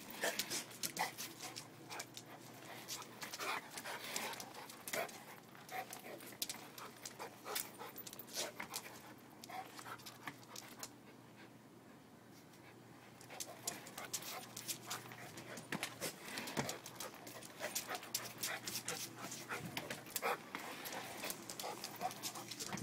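Pit bull–mastiff mix dog panting as it plays at a pair of rollerblades, with many sharp clicks and knocks scattered through, and a quieter lull of about two seconds midway.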